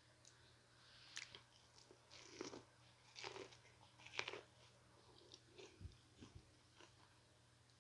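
Faint close-up chewing of barbecue-seasoned corn on the cob: a scatter of short, crisp crunches, the loudest about three and four seconds in.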